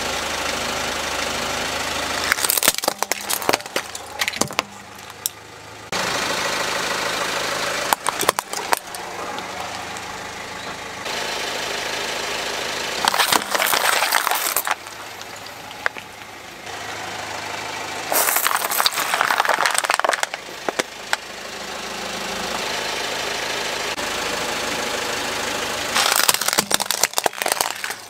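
Car engine idling while its tyre rolls over and crushes plastic toys and plastic drink bottles: five bursts of cracking and crunching several seconds apart, each lasting a second or two, over the steady engine hum.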